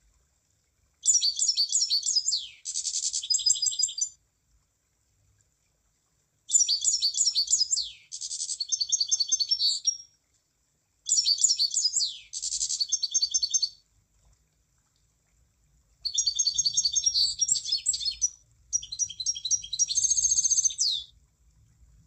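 Emprit (munia) singing: four high, rapid trilled song phrases, each about three seconds long with short silent gaps between them.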